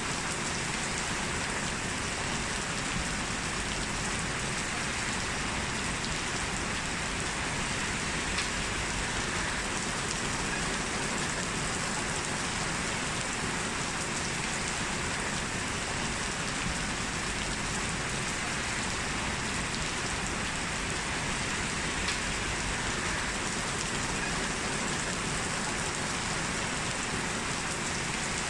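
Heavy rain falling steadily, a dense even hiss with occasional faint drop ticks.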